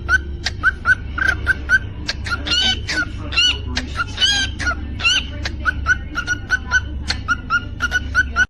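Cockatiel chirping quickly and repeatedly, a few chirps a second, breaking into several rising-and-falling whistled notes in the middle, over a steady low hum.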